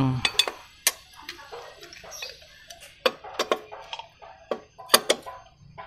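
Scattered sharp clicks and clinks of a hand wrench on the crankcase bolts of a scooter engine, as the bolts are gone over again to check their tightness.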